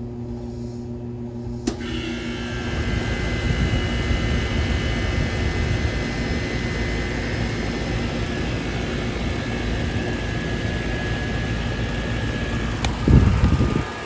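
Trane XE1000 heat pump outdoor unit with a Climatuff reciprocating compressor starting up: a low hum, then a click a couple of seconds in as the condenser fan spins up, and a steady rush of air with a faint high whine settles in. The fan motor, a replacement, runs without bearing noise. A brief low rumble comes near the end.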